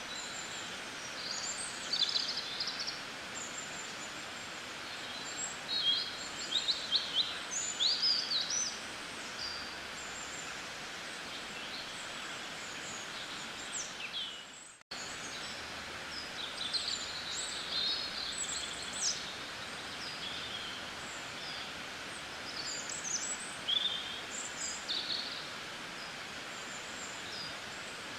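Small birds chirping and trilling in short bursts over a steady outdoor hiss, with a sudden brief dropout about halfway through.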